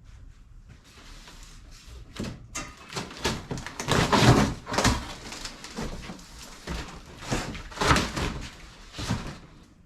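Shipping packaging being pulled open and handled: a run of knocks, scrapes and rustles, loudest about four seconds in and again near eight seconds.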